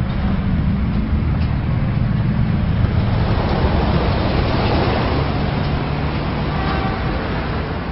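Motor vehicles driving past, a steady engine rumble with road noise, from military trucks and cars in a street.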